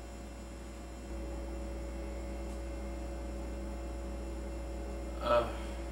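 Steady low electrical mains hum under quiet room tone, stepping up slightly about a second in; a short vocal sound from a man about five seconds in.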